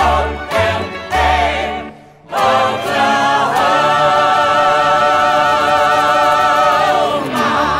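Musical-theatre song with voices singing together: a rhythmic passage over a low beat for about two seconds, a brief break, then the voices hold one long chord with vibrato for about four seconds before it ends near the close.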